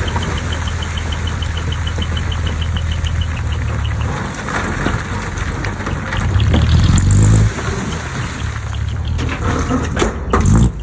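Heavy diesel earthmoving machinery running with a steady low drone, with a fast run of light, evenly spaced ticks over the first few seconds. The engine works harder and louder a little past the middle, then settles back down.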